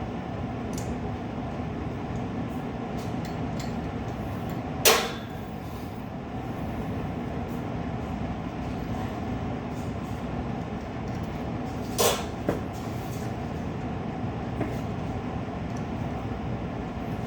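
Steady mechanical hum with two sharp metallic clicks, one about five seconds in and one about twelve seconds in, and a few faint ticks.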